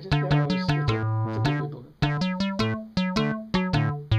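Background music: bouncy synthesizer and electric-piano notes over a bass line, with a brief break about two seconds in.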